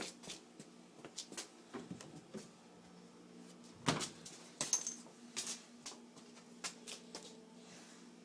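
Clicks and knocks from a 14-year-old Magic Chef refrigerator that is not working, the loudest about four seconds in, over a steady low hum.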